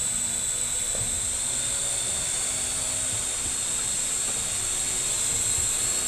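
Small quadcopter drone hovering, its electric motors and propellers giving a steady high-pitched whine.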